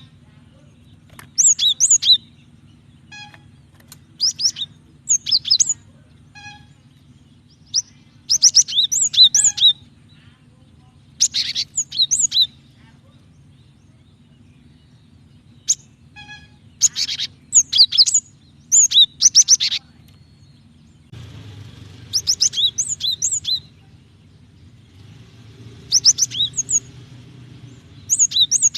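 Female cinereous tit (gelatik batu) calling to a male: repeated bursts of quick, high chirping notes, a few notes per burst, coming every one to three seconds. A faint steady low hum runs underneath.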